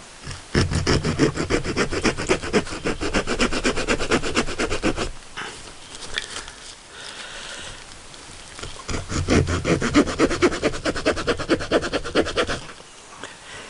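Folding wood-saw blades of Swiss Army–style pocket knives cutting into wood in two bouts of quick back-and-forth strokes, with a quieter pause between the bouts.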